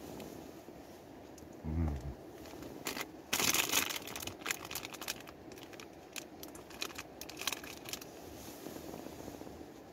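Plastic biscuit packet crinkling as it is handled, with a loud rustle about three and a half seconds in and then a run of sharp crackles.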